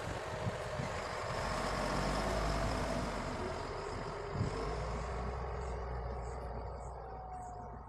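Heavy diesel construction vehicle running, with a low engine hum and a faint whine, easing off toward the end.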